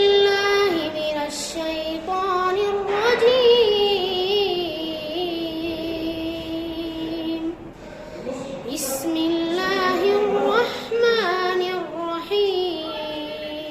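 A child's voice chanting Quranic recitation in the melodic tajweed style. There are long, drawn-out notes with wavering ornaments, sung in two long phrases with a short breath about halfway through.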